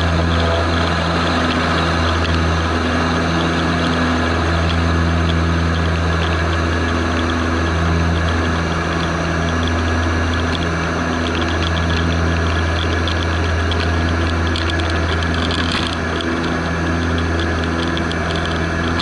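Antonov An-24's two turboprop engines and propellers running steadily: a loud, even drone with a strong low hum and several steady tones that pulse and beat against each other.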